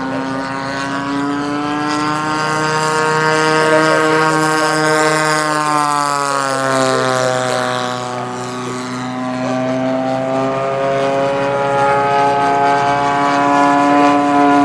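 Radio-controlled model warbird's single engine and propeller droning in flight. The pitch falls about six to seven seconds in as the plane passes, then climbs again near the end.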